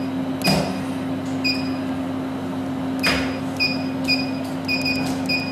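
Control touchscreen of an IPL SHR hair-removal machine giving short electronic beeps as its setting buttons are pressed, about eight irregular beeps that come faster near the end, with a couple of soft clicks. The machine's steady hum runs underneath.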